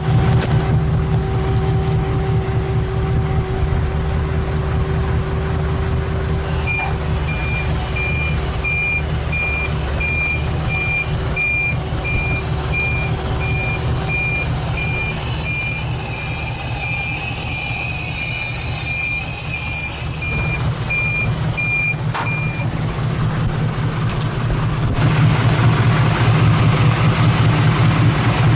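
A Chevrolet Astro's worn electric fuel pump whines steadily over the running engine of a tilt-bed car carrier; the pump is one that was billed as replaced but never was. The carrier's warning beeper sounds about twice a second for some sixteen seconds while the bed tilts, with a hiss partway through. The engine grows louder near the end.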